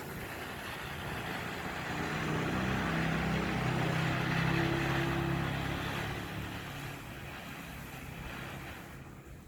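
A motor vehicle driving past: its engine and tyre noise grows louder, peaks about halfway through, then fades away.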